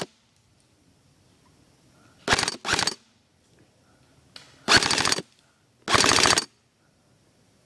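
Airsoft electric gun firing four short full-auto bursts: two back to back a little over two seconds in, then two more about a second apart near the end.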